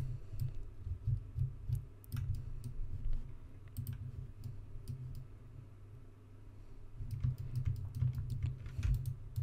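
Scattered clicks of a computer keyboard and mouse, bunched in the first couple of seconds and again from about seven seconds in, with a quieter stretch between and dull low thumps among them.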